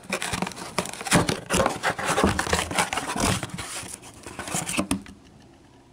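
Cardboard coin box being torn open and its flaps pulled back by hand: crackling rips and scrapes of cardboard with sharp clicks, dying down about five seconds in.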